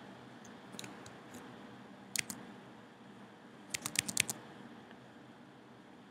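Faint clicking at a computer while a new pen colour is picked in drawing software: a few single clicks, then a quick run of about six clicks about four seconds in.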